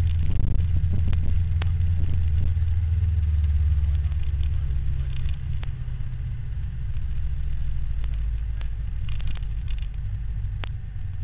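Steady low rumble of road and wind noise while riding, easing slightly about halfway through, with a few sharp clicks.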